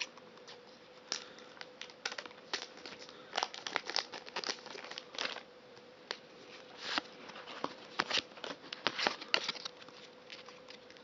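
Foil wrapper of a Pokémon trading-card booster pack crinkling and tearing as it is opened, with the cards rustling out. The sound is a string of irregular sharp crackles and rustles throughout.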